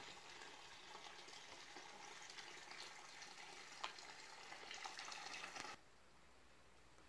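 Water from a village fountain's metal spout pouring and splashing into a stone trough, faint and steady. It cuts off suddenly near the end.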